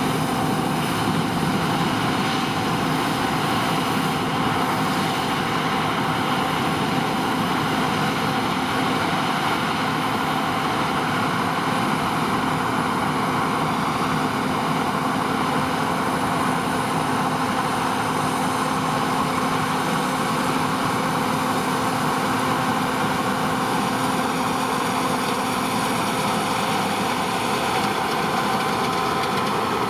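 John Deere T560 combine harvester running steadily, a constant machine drone with several steady whining tones over it.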